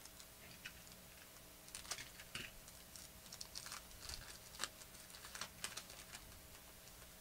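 Faint crinkling and tearing of a foil trading-card pack wrapper ripped open by hand: a run of small, irregular crackles from about two seconds in to about six seconds in.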